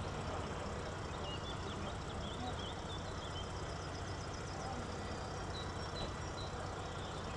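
Steady low hum of a distant E6ACTd electric freight locomotive standing with a loaded coal train. Birds chirp over it, twice.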